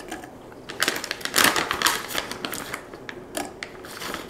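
A package of dried mango crinkling and rustling in bursts as pieces are pulled out by hand, with a cluster of crackles about a second in and another near the end.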